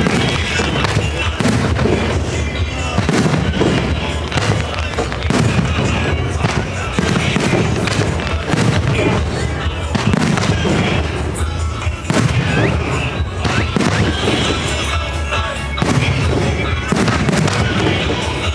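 Aerial fireworks bursting one after another, deep booms about once a second mixed with sharp crackling reports, over music from the show's sound system.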